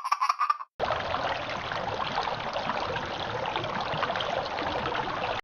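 Laughter trailing off at the start, then after a brief gap a steady rushing, trickling noise of running water.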